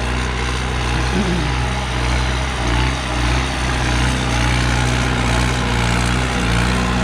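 New Holland 5630 tractor's diesel engine running steadily under load, pulling a disc harrow through ploughed soil. It gets a little louder in the second half as the tractor comes close.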